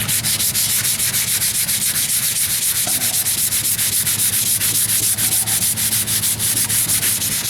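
Fine-grit sandpaper rubbed by hand over filler primer on a truck's steel wheel arch, in quick, even back-and-forth strokes, several a second. It is the finish sanding of the primer coat, working out the coarser sanding scratches.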